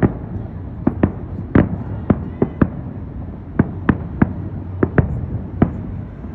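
Aerial fireworks shells bursting in a rapid, irregular string of sharp bangs, about two a second, with a steady low rumble between them.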